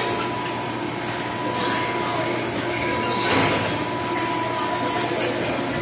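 A steady machine hum with a thin high whine running through it, and a few light metal clinks of hand tools on steel well pipe.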